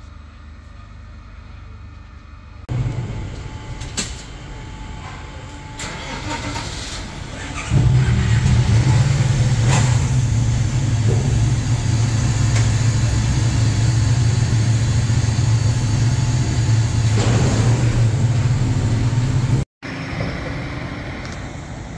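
Vehicle engines starting and running on a ferry's car deck as traffic prepares to drive off. A loud, steady low engine drone sets in about eight seconds in and cuts off suddenly near the end.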